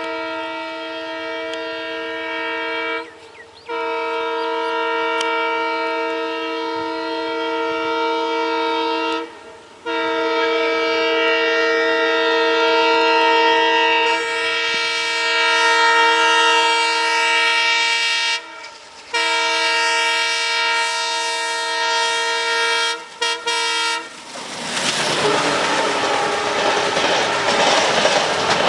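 WDG3A diesel-electric locomotive's horn sounded in long, loud multi-tone blasts, four in all, the last broken by two brief gaps. About twenty-four seconds in the horn stops and the train passes with a loud rush of wheels and coaches clattering over the rails.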